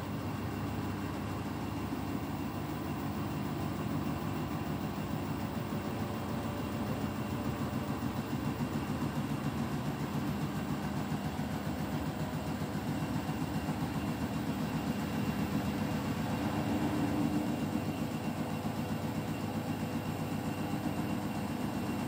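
Beko WTK104121W front-loading washing machine tumbling its drum during the rinse, with water still in the drum. The motor runs steadily and the washing sloshes, growing slightly louder for a few seconds past the middle.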